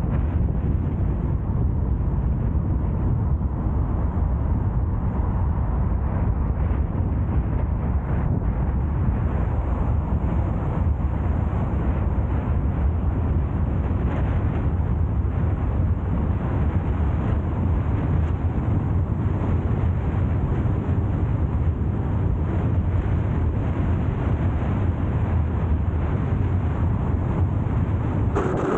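A car driving along the road: a steady low rumble of road and wind noise.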